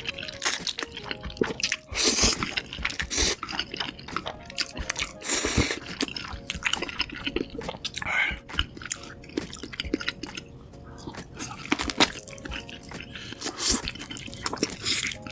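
Close-miked eating of saucy stir-fried noodles: wet chewing and mouth smacks with frequent small clicks, and a few longer noisy mouth sounds.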